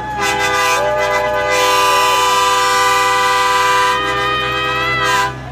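A multi-chime train-style air horn blowing one long chord of several steady notes. Another note joins for about a second and a half early in the blast, and the horn cuts off near the end.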